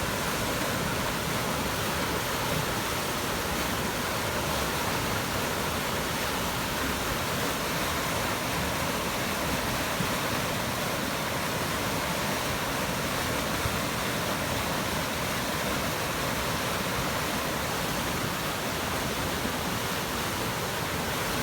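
Flash-flood debris flow rushing down a creek channel: a steady, loud roar of churning, sediment-laden floodwater carrying logs and trees.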